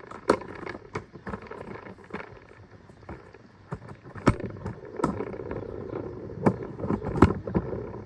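Scattered clicks and knocks of things being handled and set down, about seven in all, with soft rustling between them.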